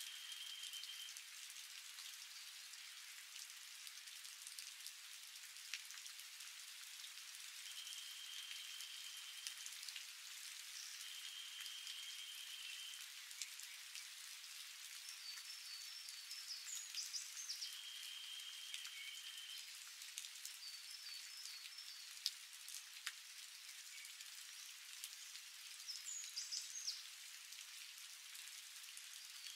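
Steady light rain falling, with scattered raindrops ticking and dripping. An even, high tone about two seconds long sounds four times, and short stuttering high notes come three times.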